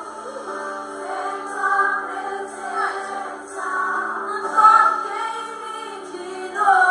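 A woman singing a Portuguese gospel worship song into a microphone, with a live band behind her. It is played back through laptop speakers, so it sounds thin, with no bass.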